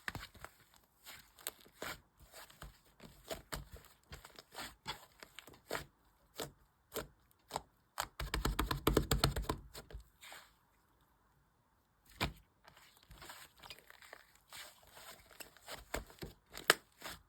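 Sky-blue clay slime being worked by hand, making sticky clicks and crackles. About eight seconds in, a louder two-second run of rapid, squelching pops; it goes quiet for about a second, then the clicking picks up again.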